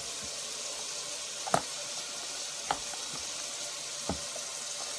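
Water running steadily from a tap into a sink, with three short knocks partway through.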